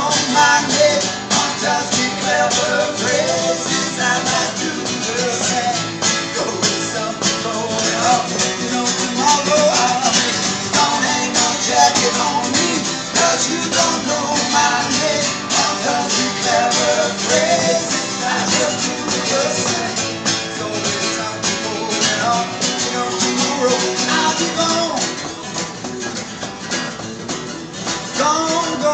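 Two acoustic guitars playing an instrumental break: steady strumming with a melody line wandering over it.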